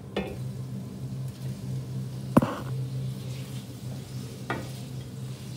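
Chopped asparagus stalks sizzling with onion and pancetta in a steel saucepan as they are stirred, with the spoon knocking against the pan three times, loudest about two and a half seconds in.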